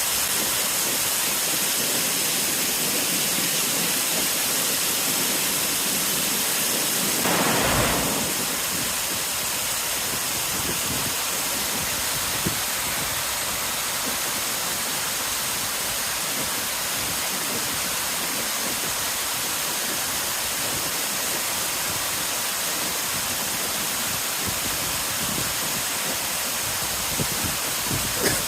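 Waterfall rushing: a steady, dense hiss of falling water, with one louder, fuller surge lasting about a second, some seven seconds in.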